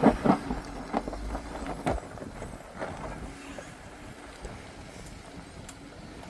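Off-road vehicle on 40-inch tires crawling over a rocky trail: a low engine rumble with irregular knocks during the first two seconds, then fading into wind noise on the microphone.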